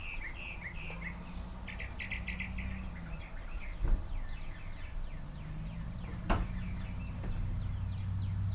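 Small birds chirping and trilling in quick runs over a steady low hum, with two sharp knocks about two and a half seconds apart.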